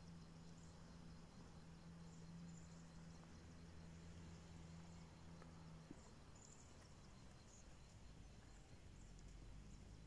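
Near silence: faint outdoor ambience with scattered faint high chirps, over a faint low steady hum that stops about six seconds in.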